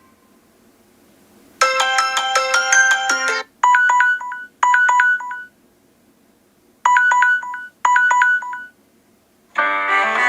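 Samsung Galaxy S6 Edge stock ringtones playing. A quick run of bright electronic notes comes first, then a short chime phrase played twice, a pause, and the phrase twice again. A fuller tune begins near the end.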